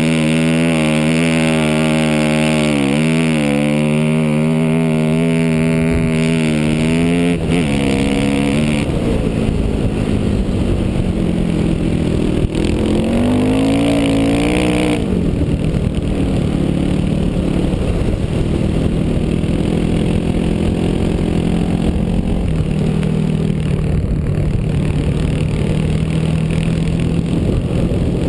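1999 Yamaha WR400F's single-cylinder four-stroke engine pulling hard under load up a steep sand dune. Its pitch dips about seven seconds in, then the revs climb again, and from about halfway through it settles to a steadier, lower note.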